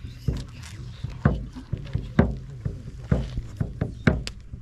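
Slow, regular heavy thuds about once a second, with lighter clicks between them and a low steady hum underneath.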